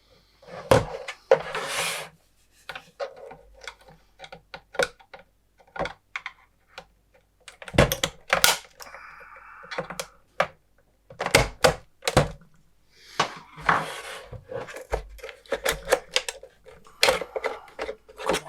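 Plastic panel of a Tektronix TDS 210 oscilloscope being worked and pried off by hand: many irregular clicks and knocks with short scrapes, and a longer scrape about nine seconds in.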